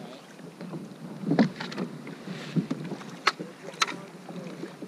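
Gear being handled in a fishing kayak as the paddle is picked up: a dull thump about a second and a half in is the loudest, followed by a few sharp clicks and knocks against the hull.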